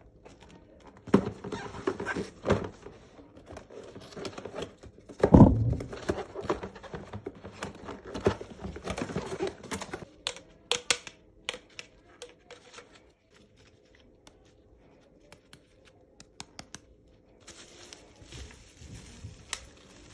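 Irregular knocks, clicks and rustling of things being handled, with one heavier thump about five seconds in and only scattered light ticks in the second half.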